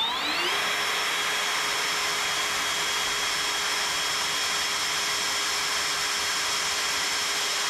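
Electric drill spinning up with a rising whine, then running steadily as a small twist bit drills a pilot hole into the centre of a spot weld in a steel car body panel.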